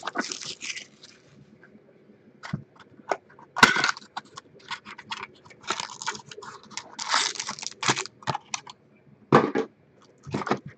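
Cardboard trading-card boxes and their wrapping being handled and opened: irregular rustling, crinkling and tearing in scattered bursts, with small sharp clicks between them.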